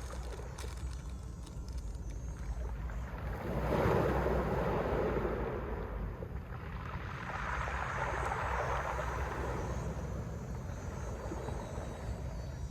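Mediterranean sea waves breaking on the shore: two waves swell and wash in one after the other, about four seconds apart, over a steady low rumble.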